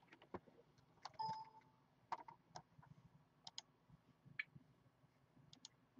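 Faint, scattered clicks and taps of a laptop's keys and touchpad, with a brief tone about a second in.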